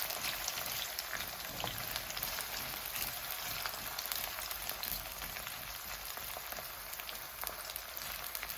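Chopped onions frying in hot olive oil in a saucepan: a steady sizzle with small crackles, easing a little in loudness toward the end.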